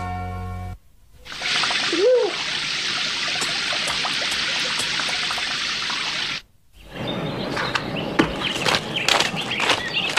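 Cartoon rain sound effect: a steady hiss of falling rain for about five seconds, with a brief rising-and-falling tone about two seconds in. It cuts off suddenly, and after a short silence comes a busy run of clicks and high chirps; the tail of accordion music ends in the first second.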